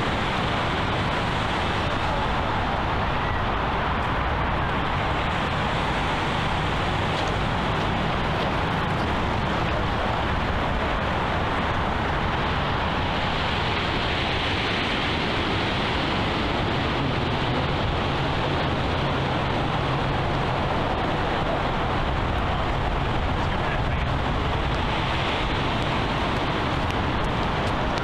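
Steady outdoor ambient noise: an even wash with no single sound standing out, joined by a low hum for a few seconds past the middle.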